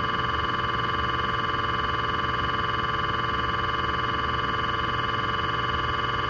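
GE MRI scanner's gradient coils buzzing while a scan sequence of the daily QA scan runs: a steady, high-pitched electronic buzz, rich in overtones and pulsing rapidly, over a low steady hum.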